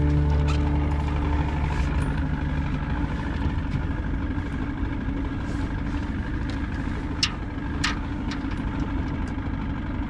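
Boat motor idling with a steady low rumble, with a few light clicks and taps scattered through it.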